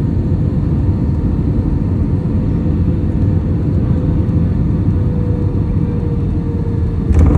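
Airliner cabin noise while the plane rolls on the ground after landing: a steady low rumble from the engines and wheels, with a faint whine that slowly falls in pitch. A short louder knock comes just before the end.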